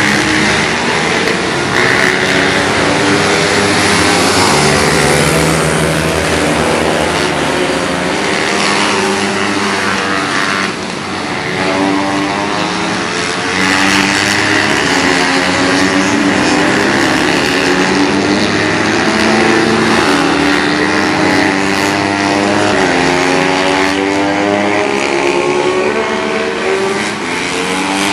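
A pack of racing pit bikes, their small single-cylinder engines revving up and down as they go through the corners. Many rising and falling engine notes overlap.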